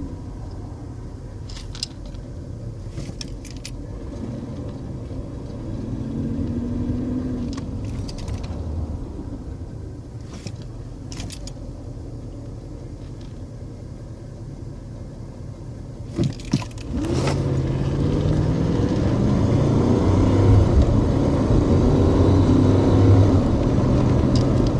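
Lincoln Aviator's 4.6 L V8 heard from inside the cabin while driving, with a few short sharp clicks. About two-thirds of the way in it gets louder and rises in pitch as the truck accelerates, sluggish on the throttle; the owner takes the engine noise for an exhaust leak.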